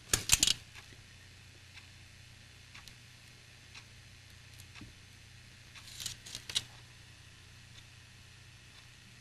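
Two short clusters of sharp clicks and rattles, one at the start and one about six seconds in, with a few faint ticks between, over a faint low steady hum.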